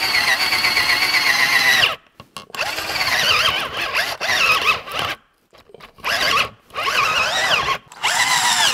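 A cheap 18-volt High Spec cordless drill boring a 1-inch spade bit into a wooden board. Its motor and gears whine with a rough, unpleasant sound, running for about two seconds, then stopping and starting in several shorter bursts. The pitch sags and wavers as the drill bogs down: it lacks the power to drive the bit.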